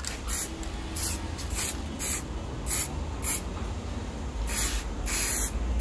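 Aerosol spray can of Abro matt black paint hissing in short repeated bursts, about one every half second, then two longer sprays near the end, as it coats a plastic motorcycle mudguard.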